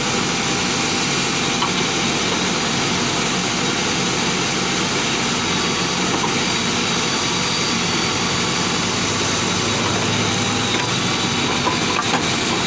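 JCB backhoe loader's diesel engine running steadily as the backhoe arm digs, with a few faint knocks from the bucket working the earth.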